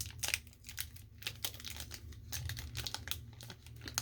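Foil trading-card booster pack wrapper crinkling as it is handled, a run of irregular crackles.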